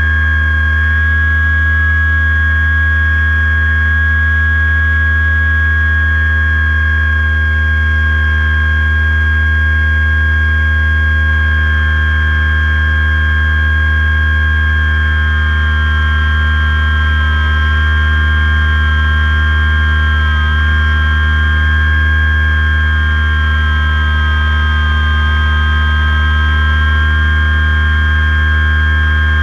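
RC airplane's motor and propeller heard from a camera on the plane: a loud, steady hum with a high whine on top, its pitch wavering slightly in the second half.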